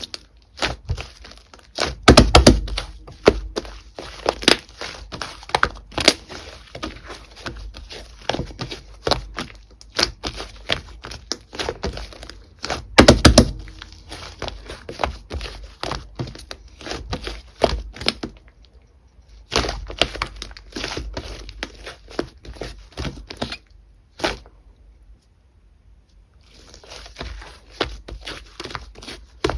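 Slime with shaving foam mixed in being squished and pressed by hand: a dense run of sticky clicks and pops, with louder squelches about two seconds in and again around the middle, and a short lull near the end.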